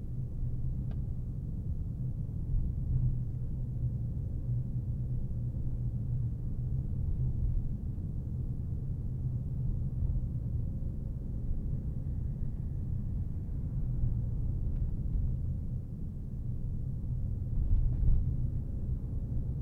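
Car driving along a road: a steady low rumble of road and engine noise, with a few faint clicks and knocks, the strongest near the end.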